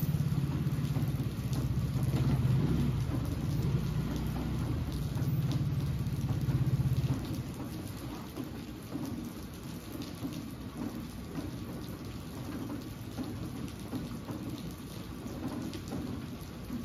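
Steady rain falling on a wet street, with scattered drips. A low engine hum from a motor scooter passing on the wet road sits under it and stops about seven seconds in.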